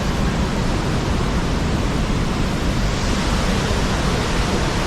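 Loud, steady rushing noise that holds even throughout, with no distinct events.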